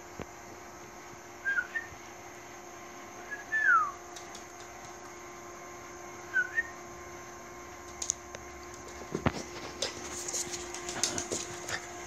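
Bichon frise whimpering: three short, high whines, the second one the loudest and falling in pitch, over a faint steady hum. Light clicks and knocks come in the last few seconds.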